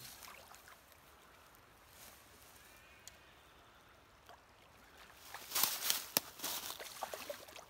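A hooked trout thrashing at the surface beside the bank, making a cluster of splashes for about two seconds near the end. Before that there is only faint outdoor ambience.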